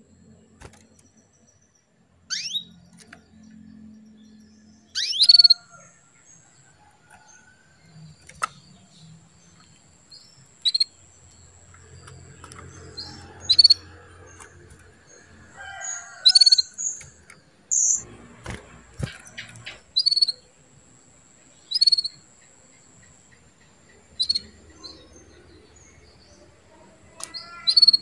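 Female canary calling: about ten short, single chirps spaced a couple of seconds apart, the first two sliding sharply down in pitch. These are the hen's calls used to rouse male canaries into singing.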